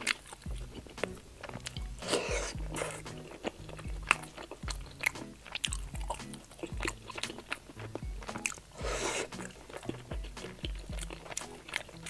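Close-miked chewing of juicy chicken leg meat off a skewer: wet smacks, bites and lip clicks in quick irregular succession.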